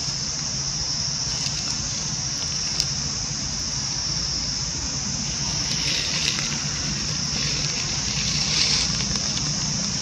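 Steady high-pitched drone of an insect chorus over a low steady hum, with brief rustles of dry leaves about six seconds in and again near the end.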